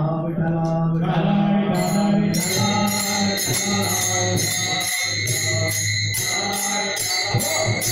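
Men's voices singing a devotional bhajan together. From about two seconds in, small hand cymbals join, clashing in a quick, steady beat.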